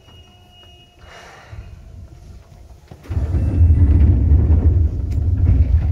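Seibu 2000 series electric train running, heard from inside the car above its under-floor equipment: a quieter rumble with faint steady whines, then a sudden much louder, deep rumble about three seconds in that holds to the end.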